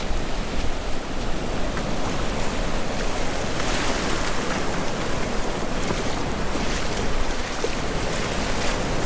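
Small ocean surf waves breaking and washing in over the shallows: a steady rush of water.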